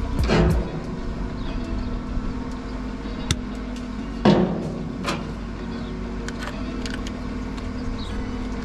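Screwdriver and hands working at the wire-spool hub inside a MIG welder's open wire-feed compartment, with two knocks against the metal housing, one just after the start and one about four seconds in, and light ticks between. A steady machine hum runs underneath.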